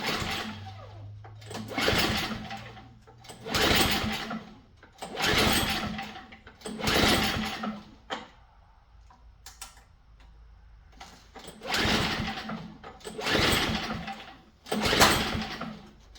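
Recoil starter cord being pulled repeatedly on an MTD snowblower's flathead engine, choked and primed for a cold start. Five pulls come in quick succession, then a pause of about three seconds, then three more. The engine turns over with each pull but does not fire.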